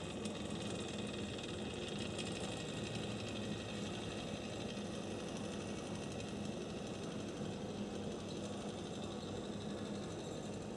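HO-scale Tenshodo brass Southern Pacific 4-6-2 model steam locomotive running along the track: the steady whir of its small electric motor and gears, even and unbroken, as a smooth-running loco should sound.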